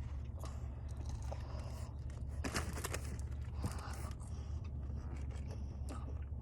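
Someone eating breaded chicken tenders, with irregular crisp crunches and small scraping noises over a steady low hum.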